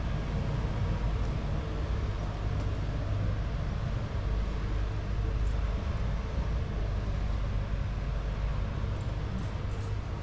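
Steady low rumble of town street ambience, with a few faint clicks.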